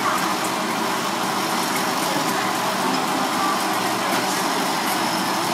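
Gas stove burner running under a pan of simmering soup: a steady rushing noise.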